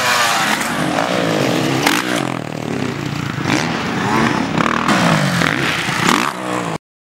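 Motocross dirt bike engine revving hard, its pitch rising and falling again and again with the throttle. The sound cuts off suddenly near the end.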